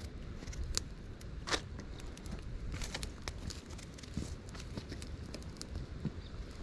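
Scattered light clicks and taps of a small knife slicing a cooked potato into a metal camp pan, the sharpest click about one and a half seconds in, over a steady low rumble of wind on the microphone.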